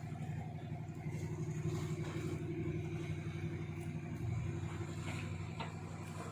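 Large engine running steadily with a deep, even throb.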